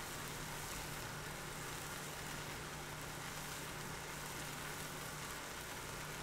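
Tomato, onion and garlic sauce sizzling gently in a frying pan, a steady soft hiss, with a faint low hum underneath.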